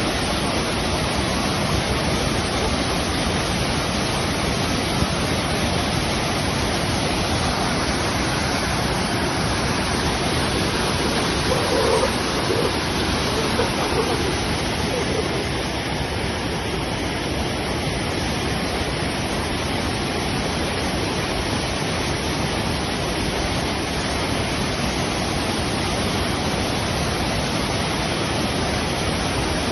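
Waterfall: water falling and splashing in a steady, dense rush of noise.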